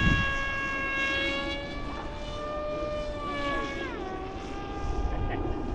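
Electric motor of a 3D-printed RC F-22 model plane whining in flight with a steady pitch, then dropping to a lower pitch about four seconds in.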